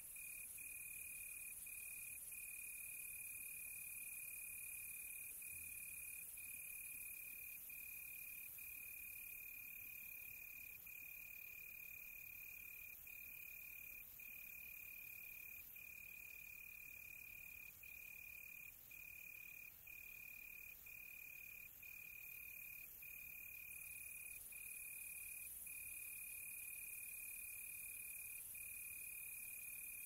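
A cricket's steady high-pitched trill, broken by brief pauses every second or two, over a faint high hiss.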